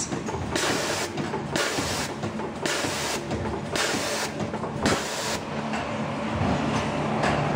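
Automatic bag packing machine running through its cycle: a steady mechanical clatter with a rushing noise that switches on and off about once a second, becoming more even near the end.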